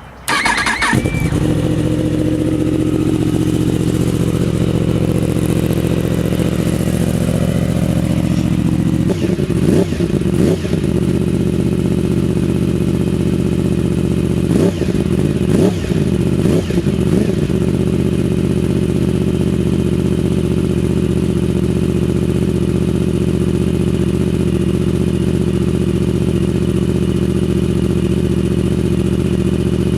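Yamaha R1 crossplane inline-four motorcycle engine with an aftermarket exhaust, coming in suddenly as it starts up and then idling steadily. It gets two short sets of throttle blips, about ten seconds in and again around fifteen seconds in, before settling back to idle.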